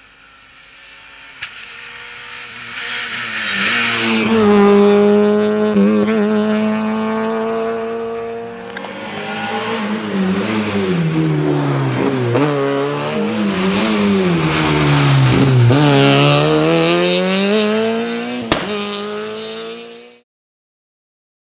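Peugeot 106 rally car engine at full throttle, revving high and dropping in pitch again and again as the driver shifts gears and lifts for corners, on two passes. A single sharp crack comes near the end, and the sound then cuts to silence.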